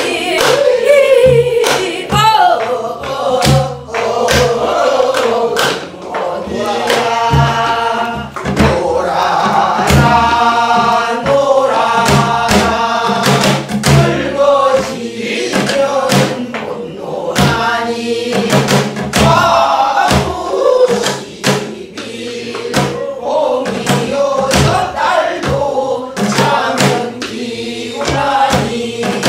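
A group of men and women singing a Namdo (southwestern Korean) folk song together, in the wavering, ornamented style of namdo minyo. Regular strokes on buk barrel drums keep the rhythm cycle.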